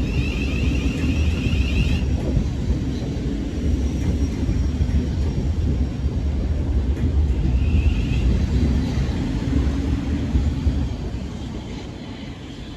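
Train passing through the station: a steady low rumble that fades away near the end, with a brief high whine at the start and again about eight seconds in.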